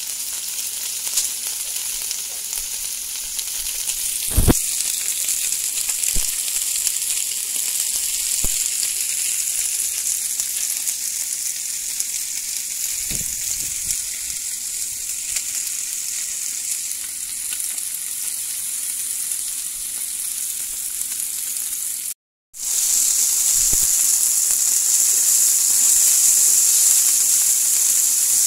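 Food sizzling in frying pans: lamb chops and potato cubes in butter, and green beans, carrots and onion, a steady hiss with a few knocks of a utensil against the pan. The sizzle drops out for a moment about three quarters of the way through and comes back louder.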